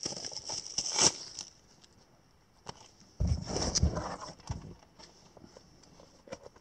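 Cardboard packaging being handled and opened, a rustling, scraping hiss with a few clicks that dies away in the first second and a half. About three seconds in comes a short bout of rumbling handling noise as the camera is moved, followed by a few faint clicks.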